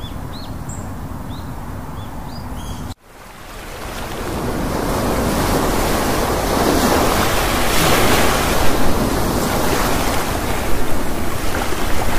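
A few short bird chirps over a steady background hiss. About three seconds in, the sound cuts to surf washing onto a sandy beach with wind on the microphone, swelling louder over the next few seconds and then holding.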